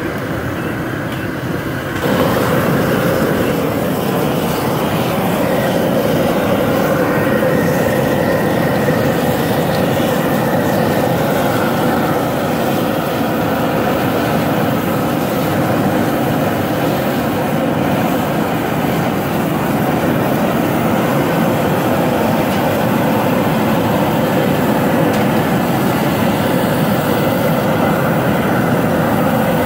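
Steady roar of an outdoor propane burner firing under a large crawfish boiling pot, stepping up louder about two seconds in.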